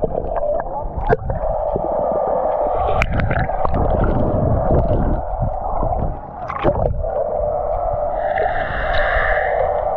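Muffled rushing and gurgling water with scattered knocks and splashes, the sound of a waterproof camera in or at the water, with a brief lull about six seconds in.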